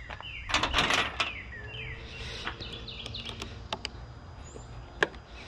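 Clicks and light rattles of mower rear-drive parts being handled and worked loose by hand, a busy cluster from about half a second to a second and a half in, then scattered single clicks. Birds chirp in the background.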